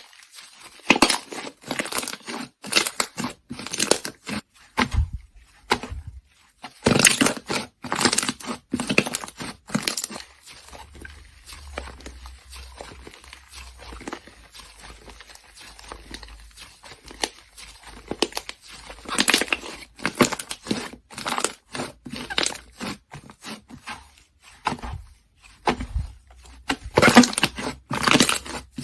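Slime being squeezed and stretched by hand close to the microphone, giving clusters of crackling and popping with short pauses between them.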